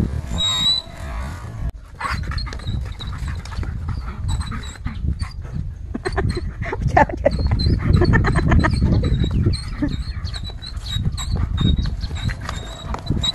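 A dog barking repeatedly over a low rumbling background noise.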